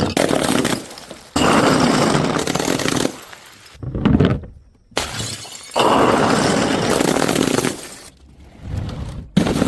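Glass bottles smashing one after another. Each smash starts suddenly and breaks into about a second or two of crashing, tinkling glass. There are two big smashes and shorter hits between them and near the end.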